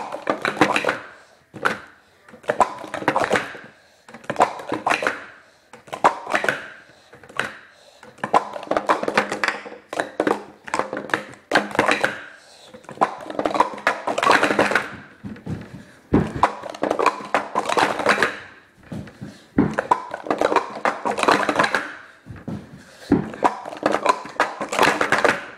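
Plastic sport-stacking cups clattering and clacking as they are rapidly stacked up into pyramids and swept back down on a stacking mat, in quick bursts every second or two with brief pauses between sequences.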